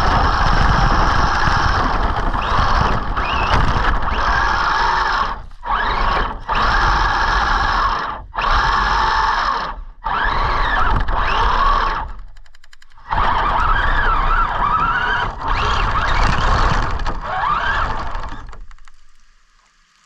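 Electric motor and drivetrain of an Arrma Senton RC truck running hard, the motor whine rising and falling with the throttle over a steady rush of noise. It breaks off abruptly several times, with a longer gap about 12 seconds in, and fades out near the end.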